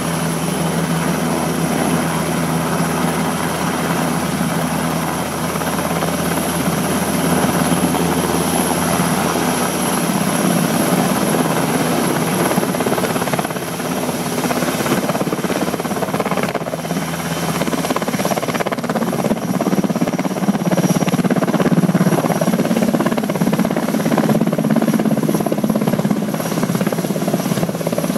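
NH90 helicopter running loud and steady: the high whine of its twin turbines over the rush of the rotor.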